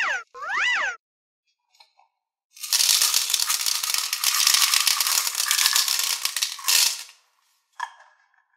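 Small plastic beads poured from a plastic bottle into a plastic tray: a dense rattling clatter of many small clicks for about four seconds, then one brief rattle near the end. Two short rising-and-falling electronic tones sound in the first second.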